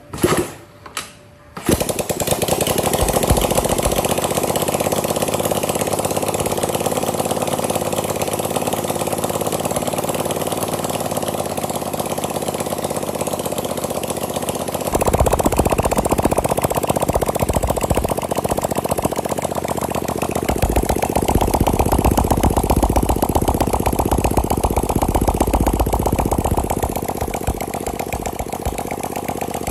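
Home-built 250cc L-twin engine, made from a scooter engine and fed by two carburettors, catching after a few short bursts and then running with a rapid, even beat. About halfway through it is opened up, louder and deeper, and it eases back near the end.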